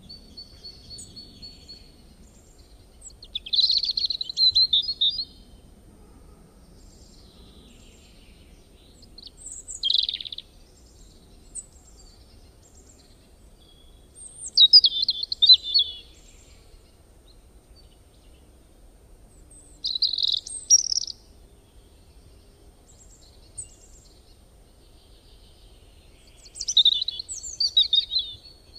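A bird singing outdoors: five short, high phrases of song, each a second or two long, spaced several seconds apart.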